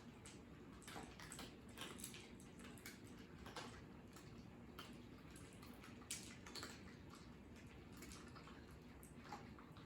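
Cats eating: faint, irregular clicks of chewing and mouths working at the food, several a second at uneven spacing.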